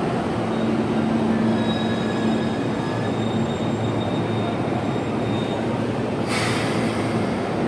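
Electric commuter train rumbling along a station platform as it slows, with faint squealing whine tones from the wheels and brakes. About six seconds in, a sharp hiss of released air starts suddenly and keeps going, typical of a train coming to a stop.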